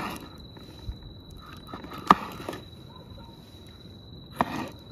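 A kitchen knife chopping a green bell pepper on a wooden cutting board: a few sharp knocks of the blade hitting the board, about two seconds apart.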